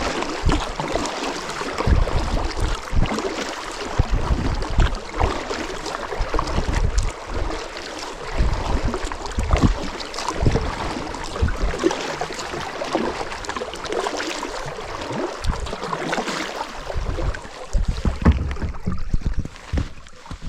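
Wind buffeting the microphone in irregular gusts, over water lapping and sloshing around a fishing kayak.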